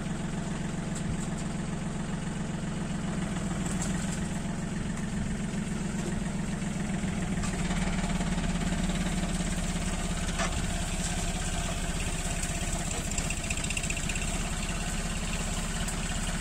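John Deere 3036 EN compact tractor's diesel engine running steadily under load as its rear-mounted rotary tiller churns through soil, with a faint knock or two.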